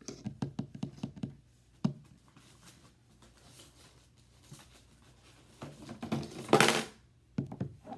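Silicone pop-it fidget toy bubbles being pressed in quick succession, a rapid run of sharp little pops, then a single pop a moment later. Near the end comes a louder, longer scuffing noise of the toy being handled.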